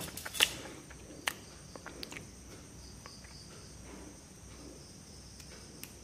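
Small clicks and taps of handling a metal USB adapter with a key-ring chain and fitting a micro-USB plug into it, a few sharp ones in the first two seconds and fainter ticks after, over a steady high-pitched background drone.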